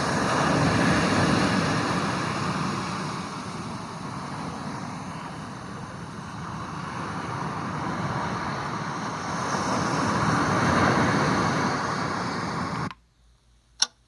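Ocean-surf recording playing from a Housbay white noise machine's speaker: a steady rushing wash that swells and ebbs slowly over several seconds. It cuts off suddenly near the end as the track is switched, followed by one sharp tick.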